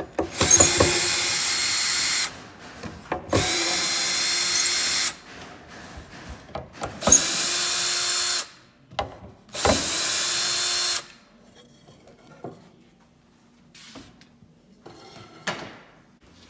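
Ryobi cordless drill-driver running screws in cedar chair slats: four steady runs of one and a half to two seconds each with a constant whine, with small handling knocks between them.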